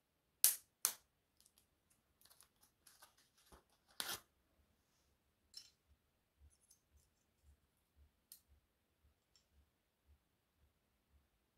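A Lord Platinum double-edge razor blade snapped in half inside its paper wrapper, two sharp snaps close together. Then light crinkling of the wrapper and a few small metal clicks as the half blade is handled and set into a single-edge safety razor.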